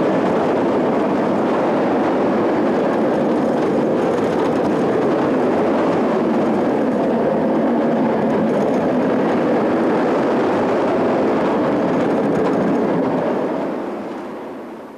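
Nemesis inverted roller coaster train running at speed along its steel track, heard from on board as a steady, loud rumble. It fades out near the end.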